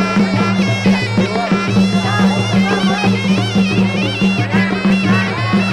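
Traditional Khmer boxing ring music: a sralai, a nasal reed oboe, playing a wavering, ornamented melody over a steady low accompaniment.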